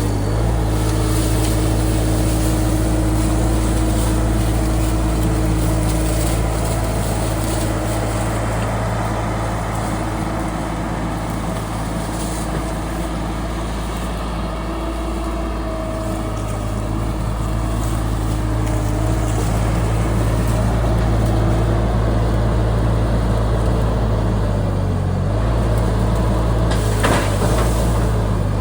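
Case TL100 mini skid steer's engine running steadily at high speed, with a slight dip in level partway through and a short sharp knock near the end.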